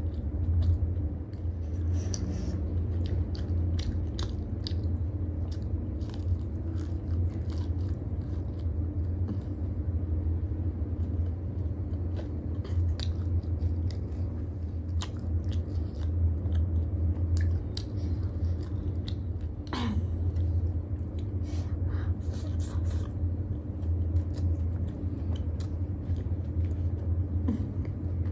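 Close-miked eating: bites and chewing of a crisp fried snack, many small crunches and mouth clicks at irregular intervals, over a steady low hum.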